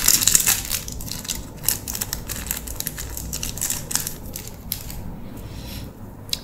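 Clear plastic shrink-wrap crinkling and crackling as it is peeled off a small stack of trading cards. The crackles come irregularly, loudest in the first second or so, then grow fainter.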